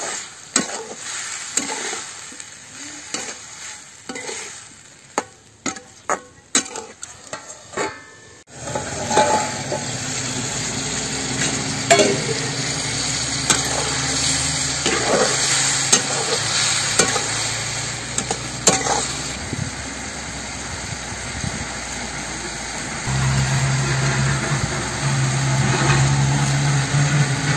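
Steel spatula scraping and knocking against an iron kadai as onions and tomatoes are stirred. About eight seconds in, a sudden sizzle starts and carries on under the stirring strokes. A low steady hum comes in near the end.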